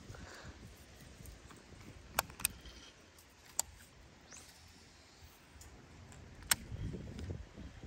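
A few sharp, isolated clicks from a baitcasting rod and reel being handled while a lure is worked, over faint outdoor background, with a low rumble rising near the end.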